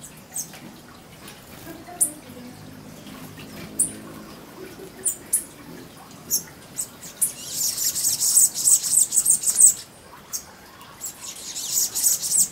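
Hummingbirds calling: single sharp, very high chip notes every second or so, then two spells of rapid high-pitched twittering chatter in the middle and near the end, typical of hummingbirds squabbling at a feeder.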